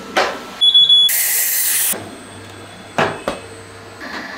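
A short high beep, then a burst of hissing about a second long that starts and stops sharply, followed by a faint low hum with two clicks.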